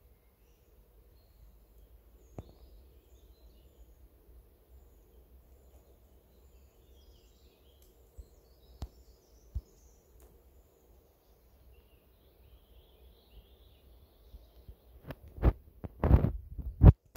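Faint birdsong of forest birds over a low steady rumble, with a few soft clicks; in the last two seconds, several loud knocks and rubs from the phone being handled against its microphone.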